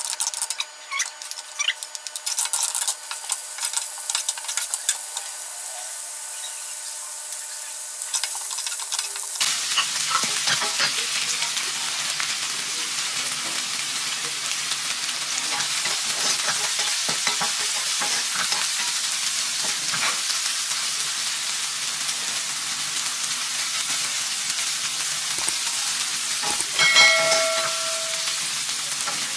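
Shallots frying in a little oil in a non-stick pan, stirred with a wooden spatula: a light sizzle with spatula clicks and scrapes, turning into a louder, steady sizzle about nine seconds in as garlic, chillies and tomato go in. A short electronic chime sounds near the end.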